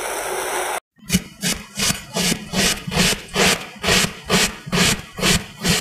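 Kinetic sand being sliced with a cutting blade. After a short break about a second in, there is an even run of cutting strokes through the sand, about three a second.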